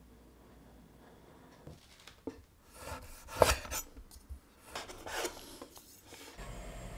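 Chef's knife slicing through a cured chorizo sausage on a wooden cutting board: several separate cuts with the blade scraping across the board, the loudest about halfway through.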